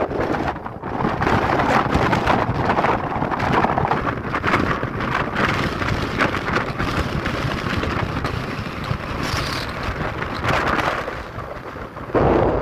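Strong, gusty mountain wind buffeting the microphone, swelling and easing, with a sudden louder, deeper gust just before the end.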